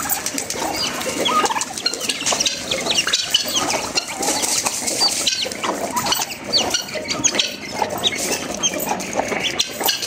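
A mixed backyard flock of birds calling and chirping, many short calls overlapping one another with some small clicks.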